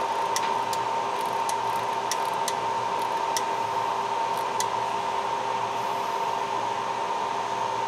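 Steady fan whirr with a faint steady tone, and several light clicks in the first few seconds as front-panel buttons on a digital storage oscilloscope are pressed.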